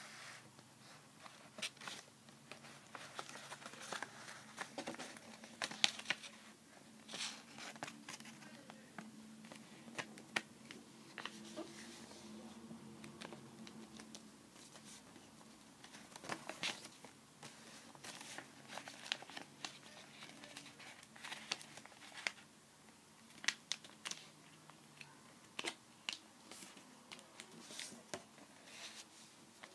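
A sheet of paper being folded and creased by hand, with short crinkles and rustles coming at irregular intervals.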